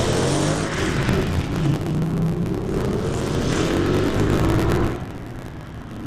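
BMW M3 GT4 race car's V8 engine revving hard through a corner, its pitch rising twice as it accelerates. It drops away and turns quieter about five seconds in.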